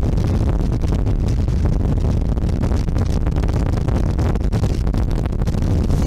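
Hurricane wind buffeting the microphone: a loud, continuous low rumble with rapid gusty flutter.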